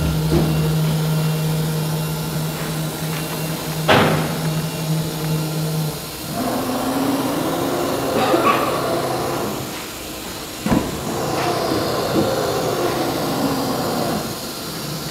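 Automatic-tool-change CNC router engraving MDF. A steady hum runs for about the first six seconds, then gives way to motor whines that rise and fall in pitch as the axes speed up and slow down. A sharp knock sounds about four seconds in and another near eleven seconds.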